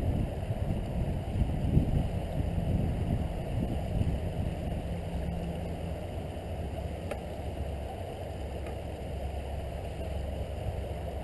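Wind buffeting the microphone: a steady low rumble, gustier in the first few seconds.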